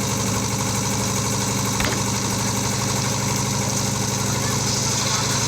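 Concrete mixer's engine running steadily with an even, fast chugging rhythm, and a single sharp knock about two seconds in.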